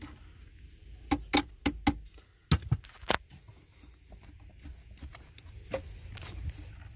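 Sharp metallic clicks and clinks from a car battery's terminal clamp being worked down onto the battery post with a socket extension. A quick run of about four clicks comes a second in, two louder clinks follow, then fainter ticks.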